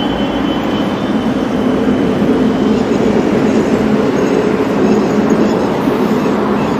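Steady road-vehicle noise, loud and even throughout, with no clear pitch.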